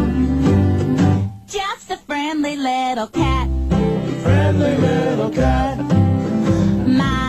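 Background music: a song with a singing voice over guitar. The low accompaniment drops out for about two seconds a second in, leaving the voice nearly alone, then comes back.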